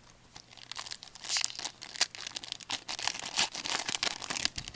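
Wrapper of a hockey trading-card pack crinkling and tearing as it is opened by hand: a dense run of irregular sharp crackles.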